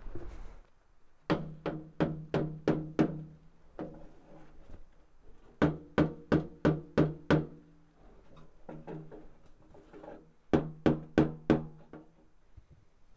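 Rusty sheet-metal chimney pipe and rain cap being knocked in quick runs of sharp blows, about three a second, each leaving a short hollow metallic ring. There are three main runs, with a few fainter knocks between them. The blows are to work loose sections that are rusted together.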